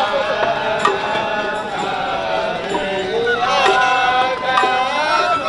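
Japanese festival float music playing a melody in held, slightly wavering notes over crowd noise.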